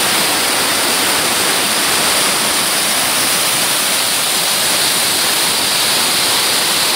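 Mountain stream water cascading over smooth rock slabs and down a small fall: a steady, loud rush of white water.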